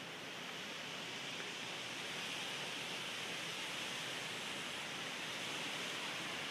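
Steady outdoor background hiss, even and featureless, brightest in the upper-middle range, with no distinct events.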